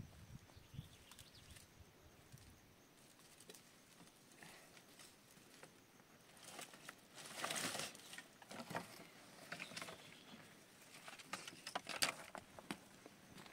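Dry firewood sticks rustling and knocking together as a bundle is handled and tied with rope: scattered light clicks, a longer rustle partway through, and a sharper knock near the end.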